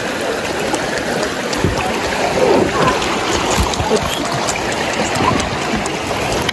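River water rushing steadily, with faint voices now and then.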